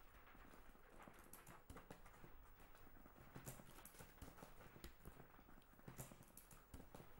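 Faint, irregular clicks and knocks, a few sharper than the rest, over a low steady hum.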